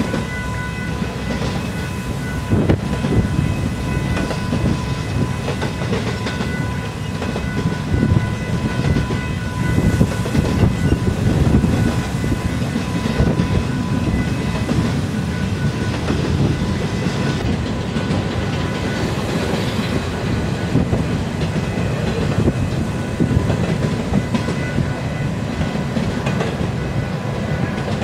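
Union Pacific intermodal freight train rolling past, its container and trailer cars making a steady rumble with irregular clickety-clack from the wheels over the rail joints. A thin, steady high tone rings over it for the first several seconds and again in the last several.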